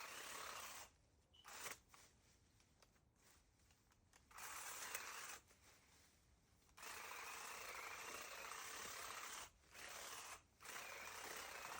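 A small motor-driven tool running in repeated bursts of one to three seconds, each starting and stopping sharply, with short pauses in between.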